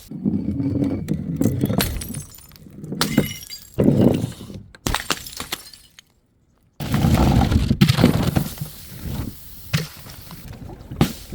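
Glass bottles smashing, a run of crashes and clinking shards, with a brief dead silence about six seconds in before more breaking glass.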